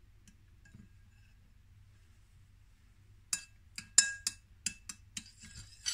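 Metal spoon stirring wet tomato pulp in a ceramic bowl: after a few near-quiet seconds, a quick run of clinks and scrapes of spoon against bowl begins a little past halfway, some ringing briefly, the loudest about four seconds in.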